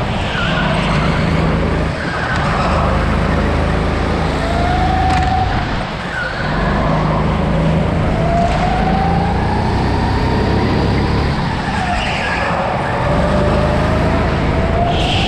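Go-kart heard onboard at racing speed: its motor rises in pitch along each straight and drops away briefly three times as it lifts for the corners. Tyres squeal briefly in the turns.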